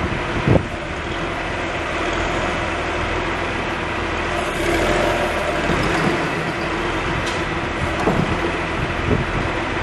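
John Deere 710D backhoe loader's diesel engine running steadily, with a few short knocks about half a second in and again near the end.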